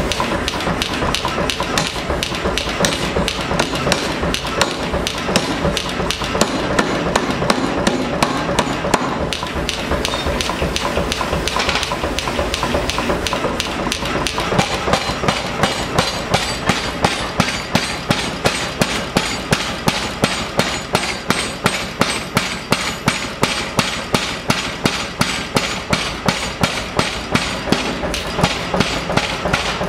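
Power hammer striking a red-hot steel bar in a rapid, even run of blows. The blows become more distinct and regular from about halfway.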